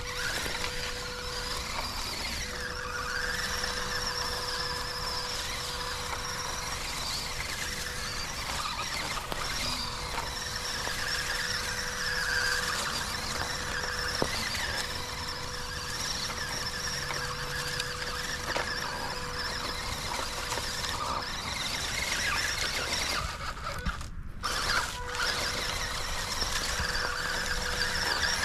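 MN82S RC Land Cruiser's small electric motor and gearbox whining as it crawls over a trail, the pitch rising and falling with the throttle. The sound drops out briefly near the end.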